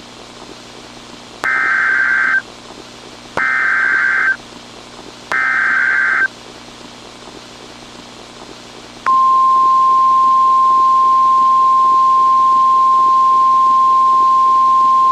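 Emergency Alert System broadcast: three short data bursts of the SAME header warble about a second apart, then, after a pause, the steady single-pitch 1050 Hz NOAA Weather Radio alert tone begins about nine seconds in. This is the signal that a new warning, here a severe thunderstorm warning, is about to be read. A faint steady hiss and hum lie underneath.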